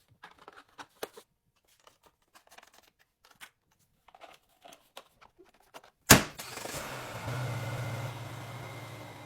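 A few light clicks and knocks of handling, then a loud sharp clack about six seconds in and a vehicle engine running steadily with a low hum until it cuts off at the end.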